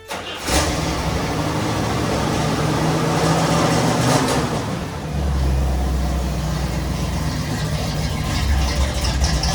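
A car engine running at idle. It comes in suddenly about half a second in, and its low tone grows stronger about five seconds in.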